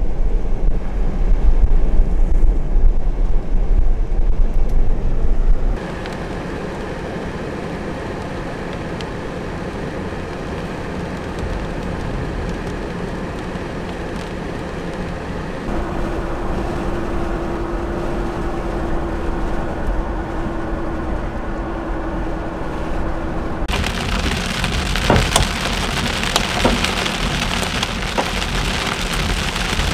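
A loud low rumble for the first few seconds, then quieter steady storm noise with a faint steady hum in the middle. About 24 seconds in, heavy rain and hail start hitting a vehicle, a dense hiss broken by sharp strikes of single hailstones.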